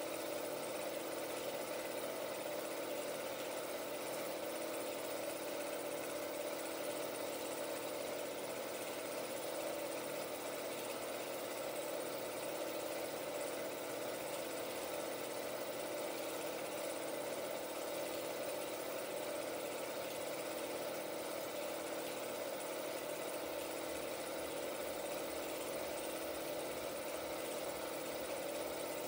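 16mm film projector running, a steady mechanical hum that does not change.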